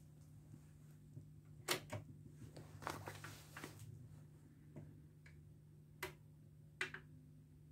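Garrard SP25 Mk III turntable's automatic mechanism clicking and clunking as the tonearm lifts off its rest and swings in toward the record, over a low steady hum. The loudest clicks come about two seconds in, followed by a cluster of lighter ticks and two sharp clicks near the end.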